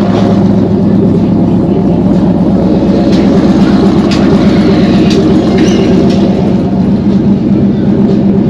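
Steady, loud engine hum with a constant low pitch and no revving.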